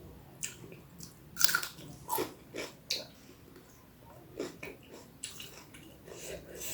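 A person eating instant noodles close to the microphone: irregular bites and chewing with wet mouth sounds.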